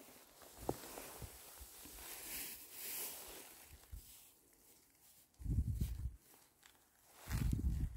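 Rustling and soft footsteps on the forest floor, with a few small clicks, then two low muffled bumps, each under a second long, in the second half.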